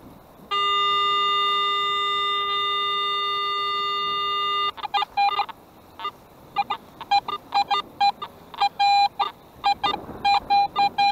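Metal detector audio: one steady, held tone for about four seconds, then a rapid, irregular run of short beeps as the coil is swept back and forth over a buried metal target.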